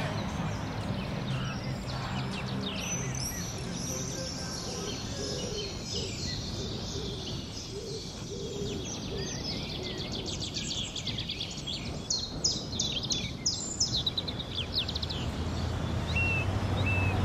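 Songbirds chirping and trilling over a steady outdoor ambience, with bursts of fast repeated chirps in the middle and a few short whistled notes near the end.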